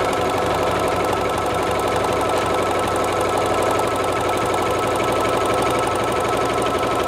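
Bernina embroidery machine running steadily at speed, its needle bar driving the cutwork blade up and down through synthetic cork on blade position two, with a fast even beat of strokes.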